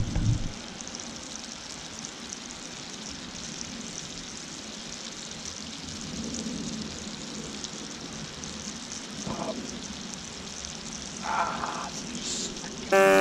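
Pigs in blankets frying on a camp stove: a steady sizzling hiss with fine crackle. A thump at the very start, and a loud buzzing tone cuts in right at the end.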